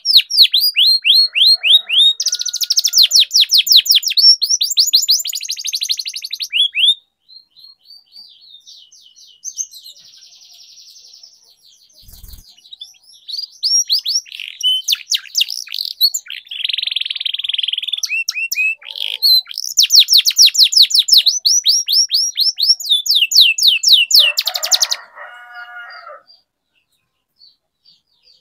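Domestic canary singing a long song of rapid trills, fast runs of repeated falling notes and buzzy rolls. It goes softer for a few seconds in the middle and stops shortly before the end.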